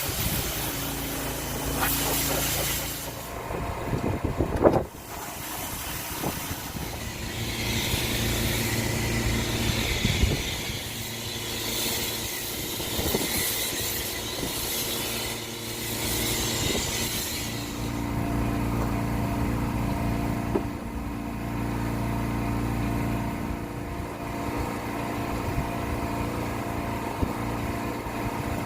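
Electric pressure washer running with a steady motor hum, with a stretch of spraying hiss in the middle and a sharp knock about four and a half seconds in.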